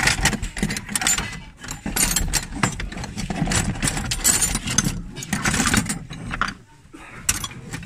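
Old metal hand tools (wrenches, pliers, files, screwdrivers) clinking and clattering against each other as a hand rummages through a suitcase full of them. The clatter thins out near the end.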